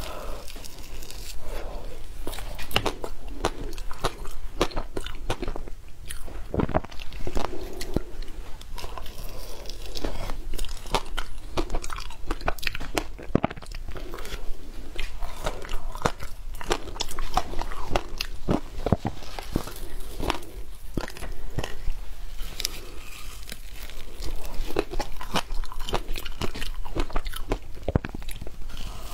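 A block of frozen shaved ice being bitten and chewed, crunching in the mouth in many irregular sharp crunches.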